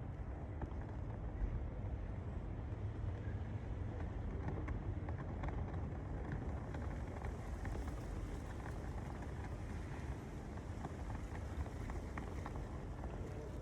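Steady outdoor ambience: a constant low rumble with faint, scattered small ticks and rustles.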